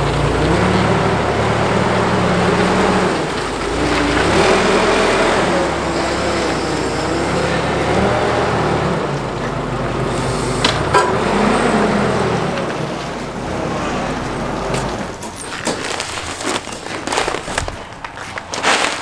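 Clark forklift engine running, its pitch rising and falling as it moves a pallet of seed bags. About fifteen seconds in it dies down, and sharp clicks and rustling follow as paper seed bags are handled.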